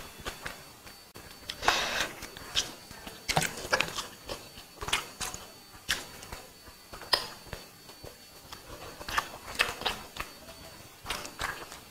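Close-miked eating with the bare hand: fingers mixing and scooping egg biryani on a banana leaf, with chewing and wet mouth sounds, as irregular short crackles, rustles and smacks.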